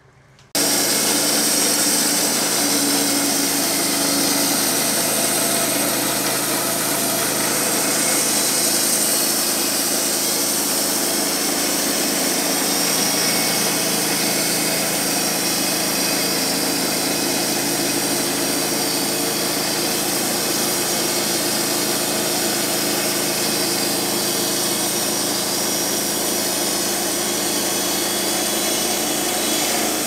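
Wood-Mizer LT15 Wide portable bandsaw mill running steadily, its band blade cutting lengthwise through a log. The sound starts abruptly about half a second in.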